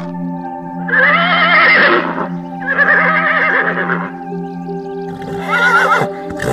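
A horse whinnying three times, each call wavering in pitch, over a steady music bed of held notes.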